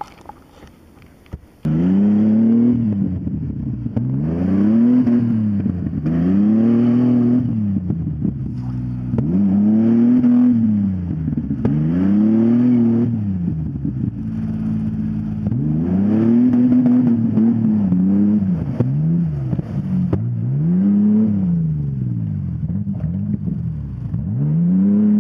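2000 Ford Explorer's engine revved hard over and over while the SUV works through deep mud, its pitch climbing and falling about every two seconds. It starts suddenly after a quieter first second and a half.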